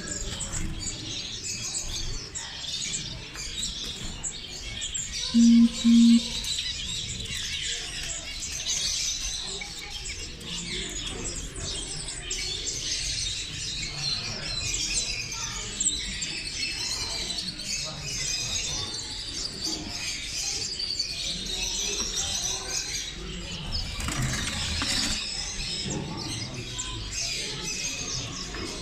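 Many small cage birds chirping and singing together in a dense, continuous chorus. About five and a half seconds in come two short, loud, low beeps in quick succession.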